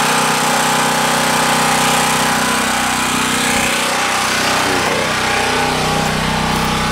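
Champion 3400-watt portable generator's single-cylinder gasoline engine running steadily.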